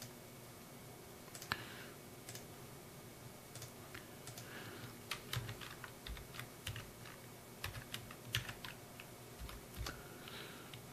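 Slow, irregular typing on a computer keyboard: faint, separate key clicks.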